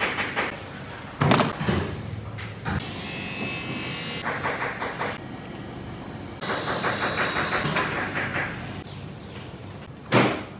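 A knife cutting through crisp baklava with a shredded-pastry top, in quick crackling strokes and two longer sawing scrapes. Sharp knocks of the knife against the steel table come about a second in and near the end.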